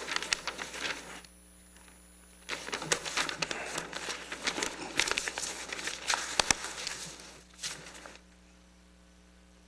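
Sheets of paper rustling and crinkling as they are gathered up and folded at a podium microphone. The rustling comes in spurts, with a pause from about one to two and a half seconds in, and it stops about eight seconds in.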